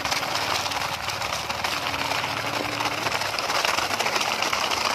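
Plastic toy dump truck loaded with dirt, pushed by hand so its plastic wheels roll and crunch steadily over gravelly ground.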